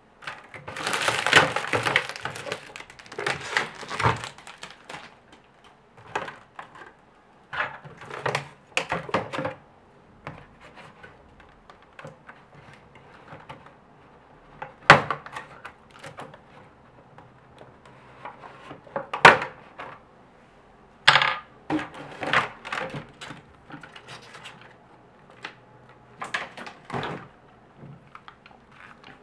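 Clear plastic packaging film and a thin plastic blister tray being handled and pulled apart. It comes as irregular bursts of crinkling and crackling, with several sharp single clicks and taps in between.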